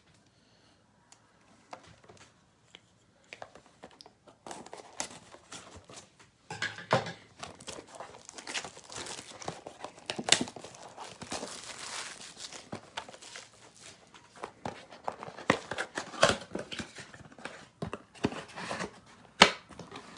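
A cardboard box of trading-card packs being torn open, and the foil-wrapped packs crinkling as they are pulled out and handled. It is nearly quiet for the first few seconds, then steady crinkling with several sharp rips.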